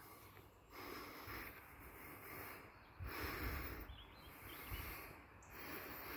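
Wind buffeting the phone's microphone in uneven gusts, with a steady outdoor hiss and a few faint chirps.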